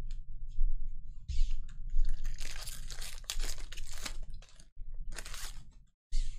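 Foil wrapper of a Panini Mosaic trading-card pack being torn open and crinkled by hand: scattered short crinkles, then a dense crackling from about two seconds in that lasts around two and a half seconds, with another burst near the end.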